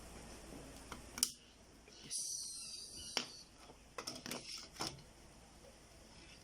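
Small plastic clicks and a brief scrape from a mini 4G Wi-Fi router's plastic casing being handled and pried apart. A single click comes about a second in, a scrape lasts about a second midway, and a quick run of clicks follows near the end.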